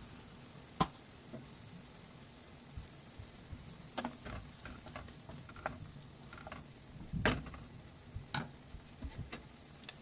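A wooden utensil stirring mushrooms and chicken in cream in a frying pan: irregular knocks and scrapes against the pan, the loudest about a second in and about seven seconds in, over a steady low sizzle.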